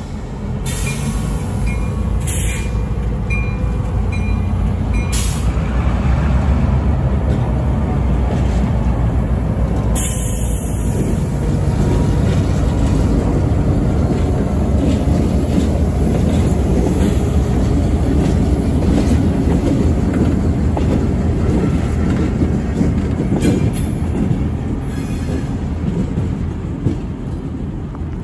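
Two diesel freight locomotives, a CSX unit and a Norfolk Southern unit, passing close by with a heavy, steady engine rumble and rolling wheels on the rails, with a faint high wheel squeal in the first few seconds.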